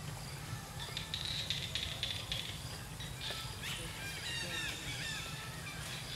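Outdoor ambience: steady low background noise and a faint high hiss, with a run of short arched chirping animal calls from about three and a half to five and a half seconds in.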